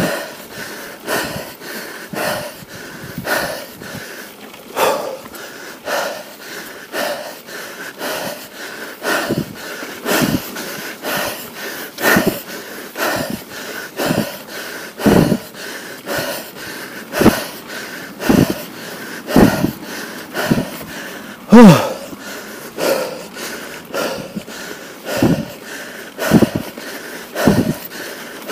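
A mountain biker's heavy, wheezing breathing from the effort of pedalling uphill: hard exhales about once a second. About two thirds of the way through, one louder exhale is voiced and falls in pitch.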